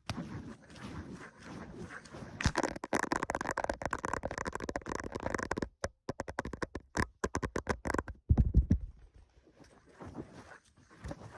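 Fast, aggressive ASMR triggers close to the microphone: rapid tapping and scratching in quick, uneven runs, broken by short pauses, with a dull low thump about eight seconds in.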